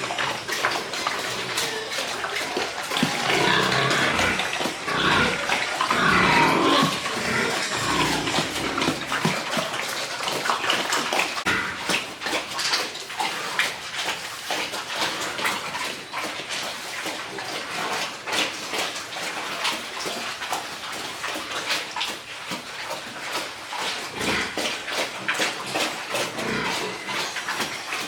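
Piglets squealing and grunting, the squeals mostly in the first few seconds, over a busy wet, clicking noise that runs on after them.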